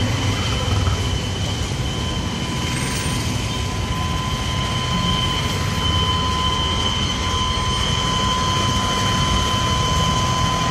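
Vehicle engines idling steadily: a low rumble with a constant high-pitched whine over it.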